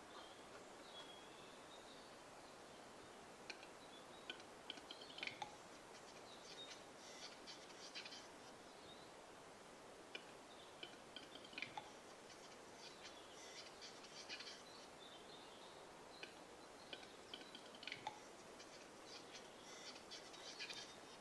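Western capercaillie cock singing its display song, faint. Runs of dry clicks quicken and are each followed by a few seconds of high scraping, three times over.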